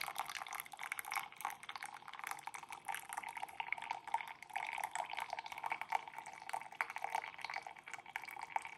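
Brewed coffee trickling and dripping from the open spigot of a Belgian balance siphon coffee maker into a mug: a steady, fluttering patter of small splashes.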